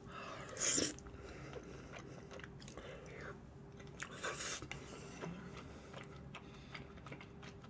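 A person chewing cream udon with flying fish roe, the small roe beads popping. There are two short louder noisy bursts, about a second in and about four seconds in, among fainter chewing clicks.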